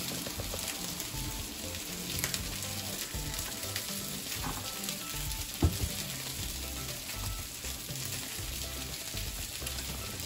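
Hot oil sizzling and crackling in a nonstick frying pan as minced garlic and butter are spooned in, with one sharp tap a little over halfway through.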